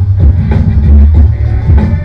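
Electronic dance music with a heavy, pulsing bass beat, played loud through an LG OK75 vertical party speaker during a sound test.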